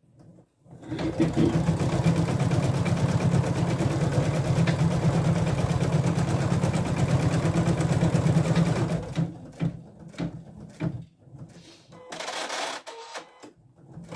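Husqvarna Viking Designer Diamond embroidery machine stitching an appliqué outline at speed, a fast, even needle rhythm. It stops about nine seconds in, followed by a few clicks and a short burst of noise near the end as it finishes the round.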